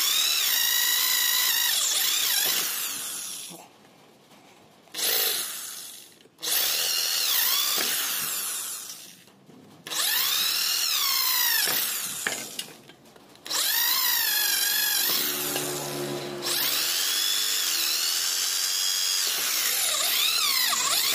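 Corded electric drill running in several bursts with short pauses, its whine rising and falling in pitch as the bit bites into and drills out the pop rivets on a motorcycle racing exhaust muffler's metal shell.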